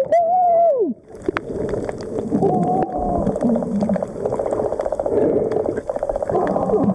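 Underwater sound of scuba breathing through a regulator: exhaled bubbles burbling in a fast flutter, with moaning tones that rise and fall. The sound drops away briefly about a second in.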